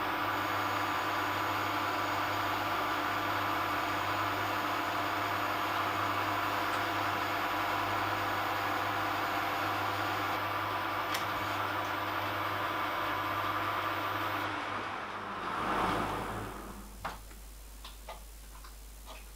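Metalworking lathe running steadily while a drill fed from the tailstock bores a hole in a metal crank blank spinning in a four-jaw chuck. About fifteen seconds in the lathe is switched off and spins down, followed by a few light metal clicks as a pin is tried in the fresh hole.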